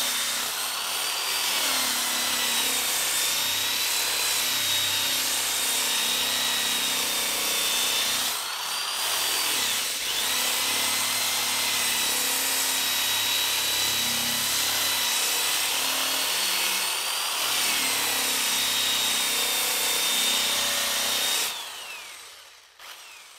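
Electric drill with a rotary sanding attachment running against wood: a steady motor whine over the hiss of the sanding pad, the whine rising briefly in pitch three times. Near the end the drill is switched off and its whine falls away as it winds down.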